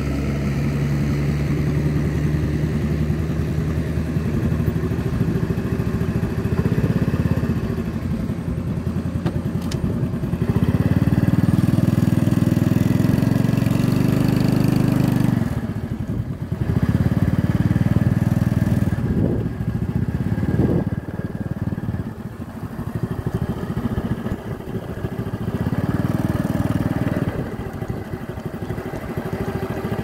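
Motorcycle engine running as the bike rides along, its note swelling and easing off a few times with the throttle.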